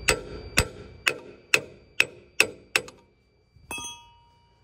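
Hammer blows on metal, seven strikes about two a second, then a single ringing metallic clang near the end.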